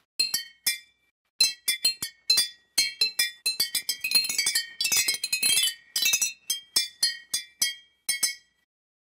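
Water xylophone of glass jars holding coloured water at different levels, struck over and over in a quick, uneven jumble of high ringing notes, two players at once, densest in the middle. The notes clash rather than form a harmony.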